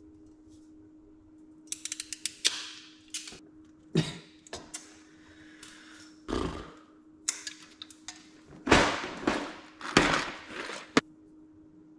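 Hand tools knocking, clattering and scraping as they are handled, an irregular string of thuds and sharper clicks, loudest a few seconds before the end.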